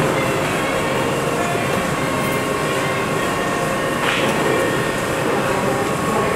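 Budd Universal Transit Vehicle subway train standing at the platform, its onboard equipment giving a steady hum with several held tones. A short hiss about four seconds in.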